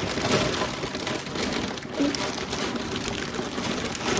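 Plastic pasta packaging crinkling and crackling as it is handled, with a dense patter of small crackles.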